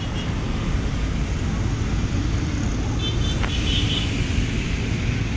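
Steady rumble of road traffic passing nearby, with a faint brief high tone about three seconds in.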